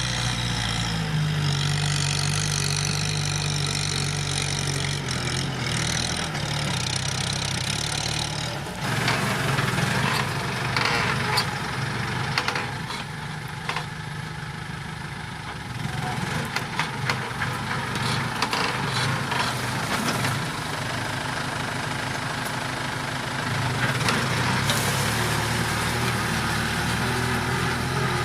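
Kubota M7040 tractor's diesel engine running under load, its pitch shifting as it works. From about nine to twenty seconds in, a clatter of sharp knocks and rattles rides over the engine.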